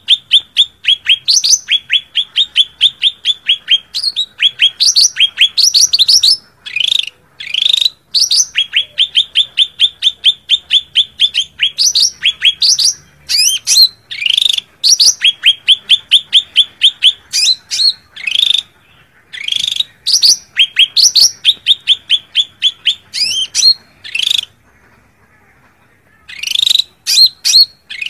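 Cucak ranting leafbird giving its fighting call, the call used to draw in a rival: fast runs of sharp, rising chirps, about five a second, in phrases broken by short pauses, with a pause of about two seconds near the end.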